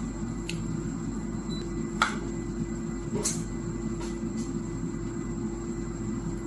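A steady low hum and rumble, with a few short clicks and smacks of someone eating mango and rice, the sharpest about two seconds and three seconds in.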